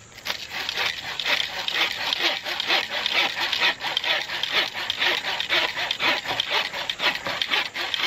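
Hand saw blade of a Zippo axe cutting a dry branch with fast, even back-and-forth strokes, a steady rasping of teeth on wood. The strokes stop near the end.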